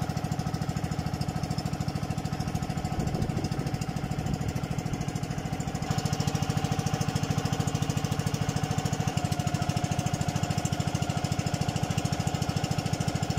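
The engine of a motorized outrigger boat (banca) running steadily at cruising speed with a fast, even chugging beat. It gets a little louder about six seconds in.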